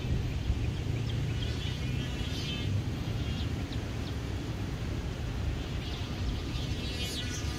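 Strong wind buffeting the microphone, a continuous low rumble. A faint high buzz rises a couple of seconds in and again near the end.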